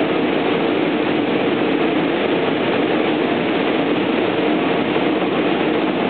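Intercity through train running past on the tracks: a loud, steady rolling noise that holds evenly throughout.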